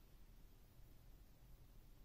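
Near silence: faint room tone.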